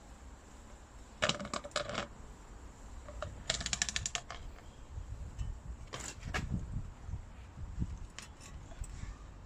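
Metallic clinks and rattles of a compressed coil spring, held in spring compressor clamps, being set onto a strut's spring seat. There are two quick clusters of clinks, about a second in and again around three and a half seconds in, then a single knock around six seconds and a few fainter ticks.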